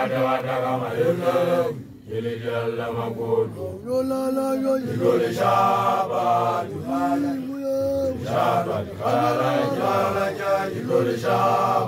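Male voices chanting in Sesotho, in the manner of Basotho initiation graduates (makoloane): held, bending phrases of about a second each, with a brief break about two seconds in.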